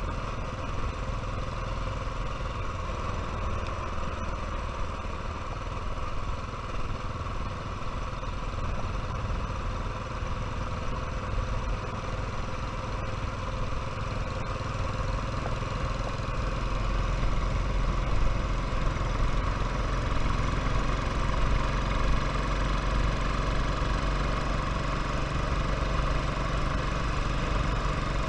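Royal Enfield motorcycle engine running steadily, getting louder with a stronger low rumble from about two-thirds of the way through.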